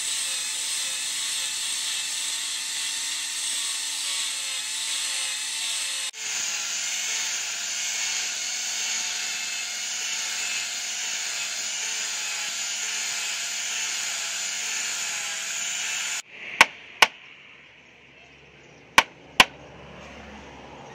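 Electric angle grinder with a polishing pad running steadily while it buffs a steel knife blade, its whine wavering slightly as it is pressed on the blade. The grinder cuts off abruptly about three quarters of the way in, followed by four sharp clicks in two close pairs.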